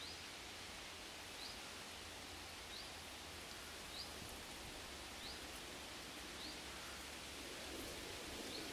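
Quiet outdoor ambience: a steady hiss with a small bird's short, high, rising chirp repeated about every second and a quarter.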